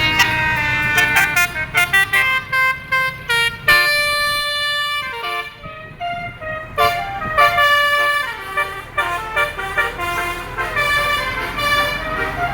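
Bus 'telolet' musical air horn playing a quick tune of short, different-pitched horn notes, with one note held longer about four seconds in.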